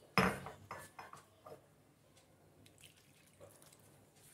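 A hand mixing water into rice flour and fried gram flour in a ceramic bowl for murukku dough. A sudden sharp sound right at the start dies away quickly, followed by a few faint strokes of the hand in the damp flour.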